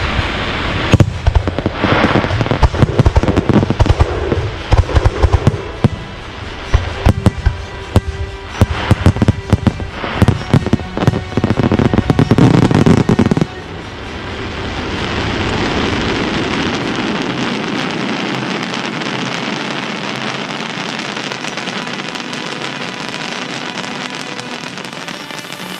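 Fireworks finale: a rapid barrage of loud bangs and crackling for about thirteen seconds that stops suddenly, followed by a steady rushing noise that slowly fades.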